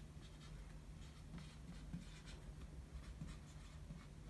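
Dry-erase marker writing on a whiteboard: a faint run of short, quick strokes as letters are written, over a steady low hum.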